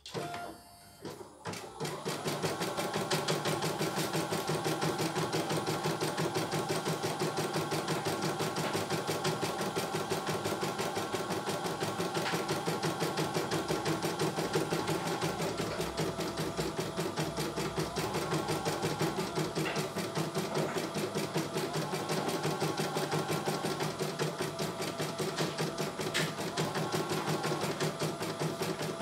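CNY E900 computerized embroidery machine started by a button press, then stitching a design: the needle runs at a rapid, even rate while the hoop carriage shifts the fabric.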